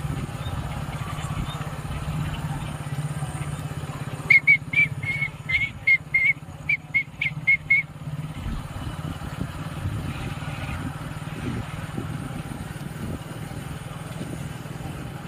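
Steady low hum of a moving vehicle. About four seconds in, a run of about a dozen short, high-pitched whistle-like toots comes quickly one after another for some three seconds and stands out above the hum.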